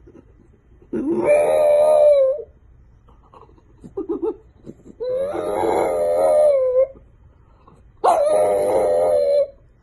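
French bulldog howling: three long howls, each sliding up in pitch and then held. A few short, faint sounds come between the first two.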